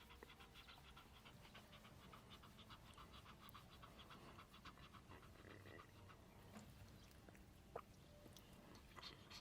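A dog panting quickly and faintly in an even rhythm, easing off in the last few seconds, with one sharp click shortly before the end.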